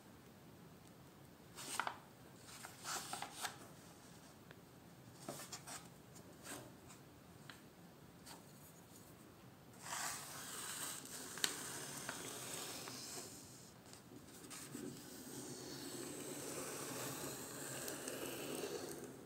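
Parchment sheets rustling as they are handled and folded. About halfway through, a bone folder is rubbed along the fold to crease the quire, in two long stretches of rubbing with one sharp click between.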